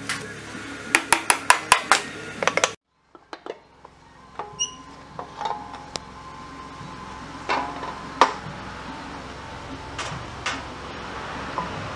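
Metal clinks and knocks of hand tools and bolts while a scooter's CVT transmission cover is being removed. A quick run of sharp clicks in the first few seconds, a brief dropout, then scattered knocks and clinks.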